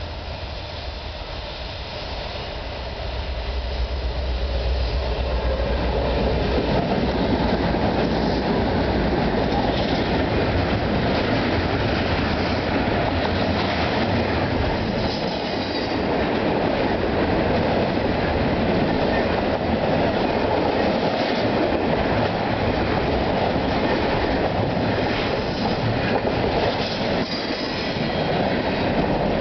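Norfolk Southern diesel freight train passing close by. A low diesel rumble builds in the first few seconds as the locomotives arrive. Then double-stack intermodal cars roll past with steady wheel-on-rail noise, clicking over the rail joints, and a few brief high wheel squeals.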